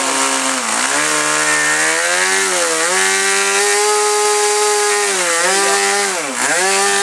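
Small gas engine of an RC model airplane running at high RPM on the ground, its pitch dipping briefly about four times as the throttle is eased and then climbing back. It is being held at high RPM to burn off fuel after flooding.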